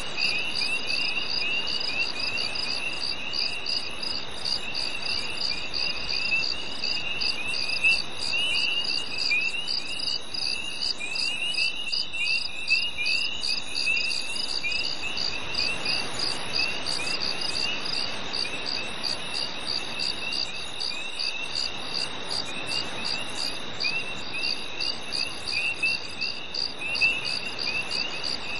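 Crickets chirping in a summer night chorus: a steady high trill with a fast, even pulse over a second chirping that repeats in short rising notes, with a faint hiss beneath.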